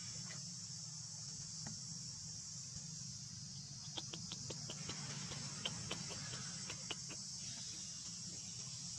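Steady high-pitched drone of insects, with a run of small sharp clicks and crackles from about four seconds in, lasting a few seconds.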